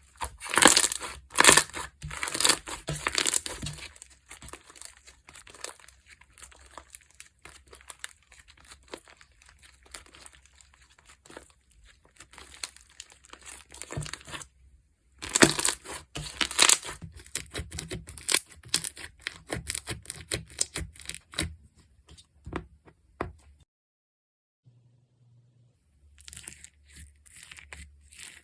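Slime being squished, pressed and stretched by hand, giving crackling, popping clicks in bursts. The bursts are loudest in the first few seconds and again about halfway through. It goes briefly quiet near the end, then softer clicking resumes.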